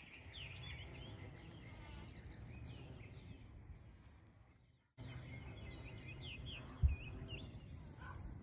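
Small songbirds chirping and trilling in quick, repeated notes over a steady low rumble. The sound fades and drops out for a moment about halfway through, then comes back. A single thump falls near the end.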